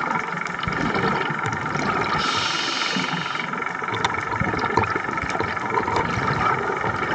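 A boat engine running steadily, with a hiss that swells and dies away for about a second around two seconds in.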